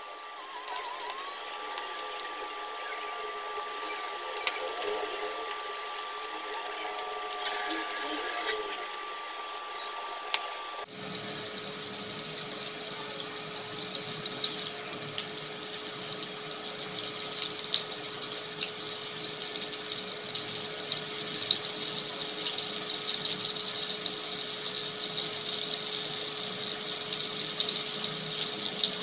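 Coated chicken pieces deep-frying in hot oil in a steel pan, sizzling and crackling, with a steady whine underneath. About eleven seconds in the sound cuts to a denser, louder sizzle.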